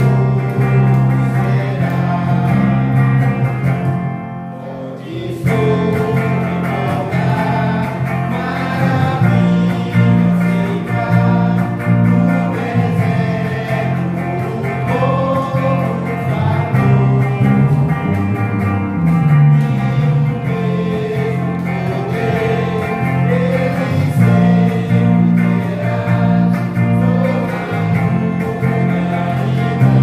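A Christian hymn sung by a small group of voices, with electric guitar and bass guitar played through an amplifier. The music eases off briefly about four seconds in.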